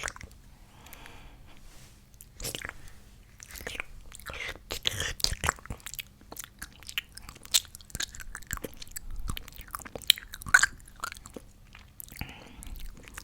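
Close-miked mouth sounds of a person imitating a pig eating: irregular wet smacking and chomping clicks, with a breathy rush about a second in and again near the end.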